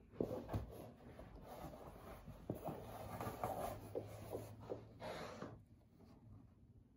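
Hands smoothing and pinning cotton quilt rows onto a fabric design wall: soft rustling and rubbing of fabric with a few light ticks, and a longer brushing stroke about five seconds in.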